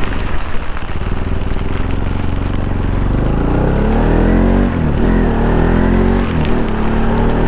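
Motorcycle engine running under way, its pitch climbing about halfway through as it accelerates and dipping briefly twice, like gear changes.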